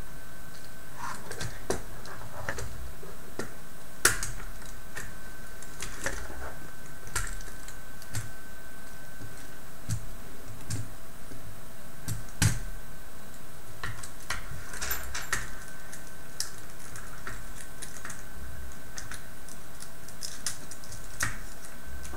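Small plastic parts clicking and rattling as a robot tank's tracks and wheels are handled and fitted by hand: irregular light clicks, with two sharper clicks about 4 and 12 seconds in, over a faint steady hum.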